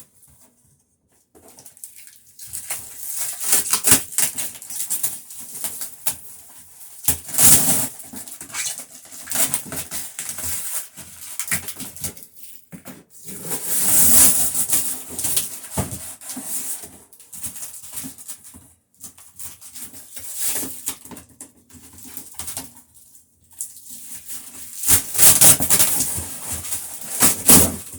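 Loud crinkling and rustling of packaging as a clearance box is unpacked, coming in uneven spells with short pauses between them.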